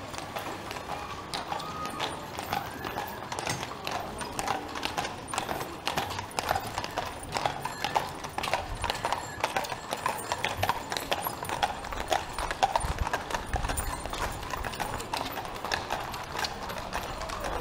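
Hooves of draught horses clip-clopping on a paved street as several horse-drawn wagons and carriages pass, an uneven, overlapping patter of many hoof strikes.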